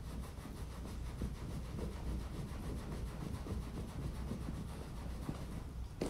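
A towel rubbing a Doberman puppy's coat dry: an irregular run of scratchy cloth-on-fur scrubbing strokes, with one sharp knock just before the end.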